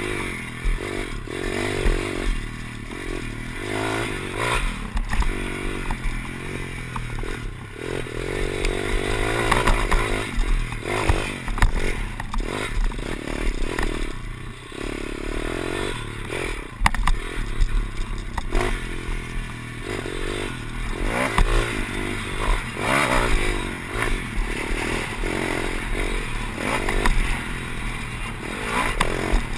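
Pit bike's small single-cylinder four-stroke engine revving up and down as it is ridden hard around a dirt track, with wind buffeting the onboard microphone and rattle and scraping from the bike over the rough ground.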